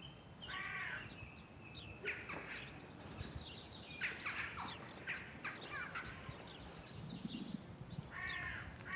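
Birds calling: scattered short chirps, with a longer, stacked call about half a second in and another near the end.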